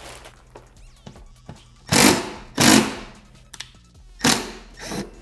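Ratchet wrench being worked on fasteners under a car's rear bumper: short, loud strokes in two pairs, about two seconds and four seconds in, over background music.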